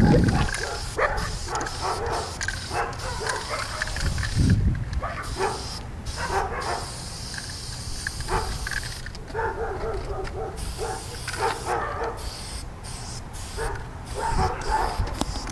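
A dog barking again and again, with a low rumble on the microphone about four seconds in.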